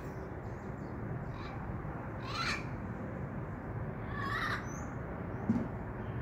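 Wild parrots calling: a few short calls about two seconds apart, over a steady background hiss. A soft low thump comes near the end.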